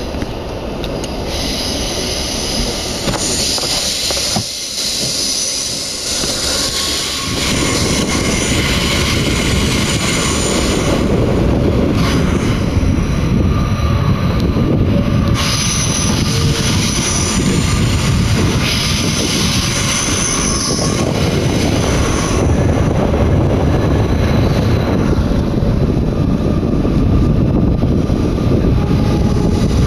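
Z20900 double-deck RER commuter train heard from inside the passenger saloon, running through a tunnel: a loud steady rumble of wheels and running gear that grows louder over the first several seconds as the train picks up speed. Several stretches of high-pitched wheel squeal ring out over the rumble.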